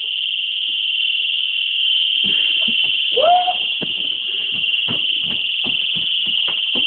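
House alarm sounding a steady, shrill, high-pitched tone, with a run of knocks and thumps starting about two seconds in and a short vocal sound about a second later.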